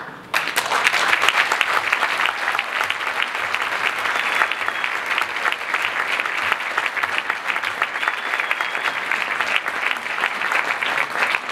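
Audience applauding: many hands clapping, breaking out suddenly a moment in and going on steadily.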